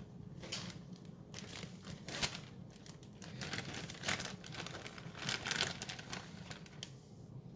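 Plastic zipper bag crinkling and rustling as it is handled, in a run of irregular crackles.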